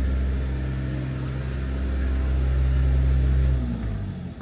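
A motor vehicle's engine running close by with a steady low hum, then dropping in pitch and fading out near the end.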